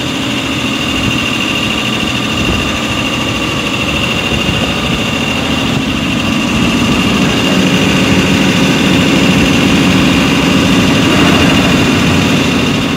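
Kirloskar reciprocating compressor running under its electric motor and flywheel drive: a loud, steady mechanical drone with a steady high whine over it, getting a little louder about halfway through.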